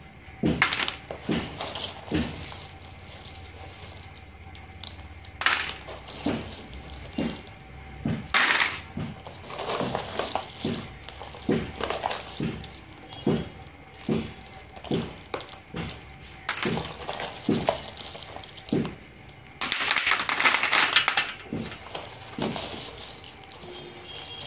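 Loose slate pencils clicking and clattering against each other and the cardboard box as a hand rummages through them, with a longer rustling scrape about twenty seconds in.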